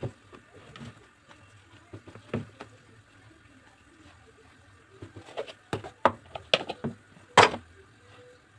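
A block of homemade hard soap being worked out of a plastic tub and the thin plastic film lining it: scattered crinkles, taps and knocks of plastic. They are sparse at first and busier from about five seconds in, with the loudest a short rustling scrape about seven and a half seconds in.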